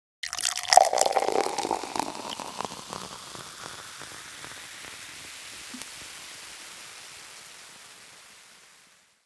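Liquid pouring with splashes and drips, dying down into a steady hiss that fades out near the end.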